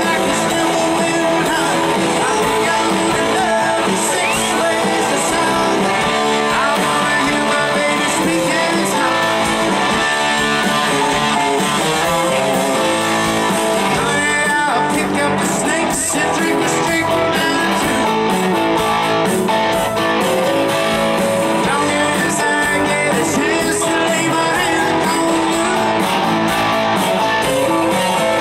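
Southern rock band playing live through a PA: electric guitars over drums and keyboard, loud and unbroken.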